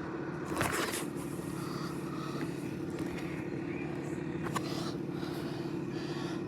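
Wind and rain of a severe thunderstorm: a steady rush with a low, steady hum underneath, and one louder gust about half a second in.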